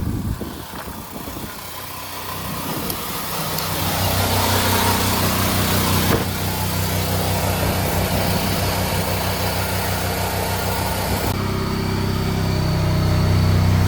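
A car tyre being inflated with compressed air: a steady hiss of air over a low, even machine hum that builds up in the first few seconds. There is a click at the very start, and the hiss thins out about three quarters of the way through.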